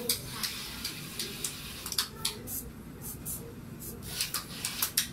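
Small Arduino robot car's DC gear motors and sensor servo running, heard as irregular sharp clicks and ticks over a low hum.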